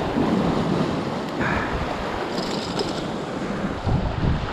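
Ocean waves surging and washing over reef rocks, a steady seething surf.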